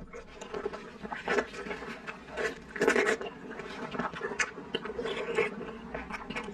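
Close, wet mouth sounds of chewing a soft, slippery jelly-like block, with irregular smacks and squelches. Sticky, slippery noises of gloved hands handling the sauce-coated piece are mixed in.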